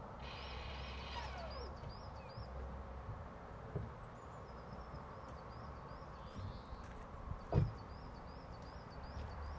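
Faint rural ambience with a small bird chirping over and over, a low hum in the first few seconds, and one dull thud about seven and a half seconds in: a car door being shut.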